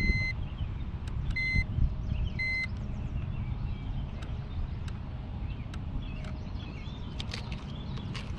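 A handheld digital fish scale gives three short, high beeps about a second and a quarter apart as it weighs a bass. Wind rumbles low on the microphone throughout.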